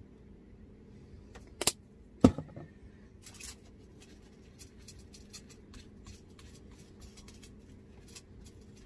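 Two sharp clicks about half a second apart, a couple of seconds in, from handling a plastic squeeze bottle of sealer. After them comes soft, scratchy dabbing of a small paintbrush working sealer into the stamped recesses of an air-dry clay spoon rest.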